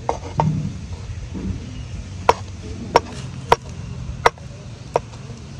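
Kitchen knife chopping boiled egg white on a wooden cutting board: about seven sharp taps of the blade striking the board at an uneven pace.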